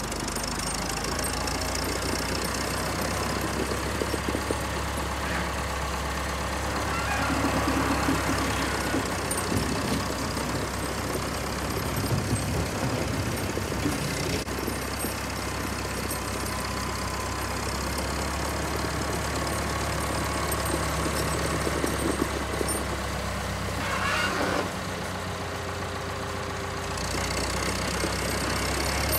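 Diesel engine of an old Volvo wheel loader running as the machine drives and manoeuvres, the engine note shifting up and down several times as it speeds up and slows.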